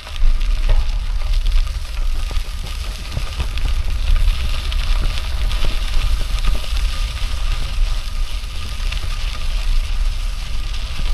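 Wind buffeting the microphone, a steady low rumble with a hiss over it, starting abruptly.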